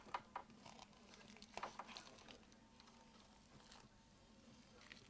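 Faint sounds of a kitchen knife slicing a large piece of raw meat on a paper-covered wooden board: a few soft clicks and scrapes scattered through.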